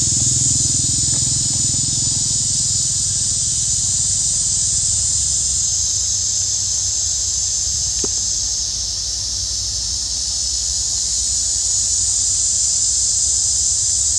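Steady high-pitched buzzing of a forest insect chorus, with a low rumble during the first few seconds and a faint click about eight seconds in.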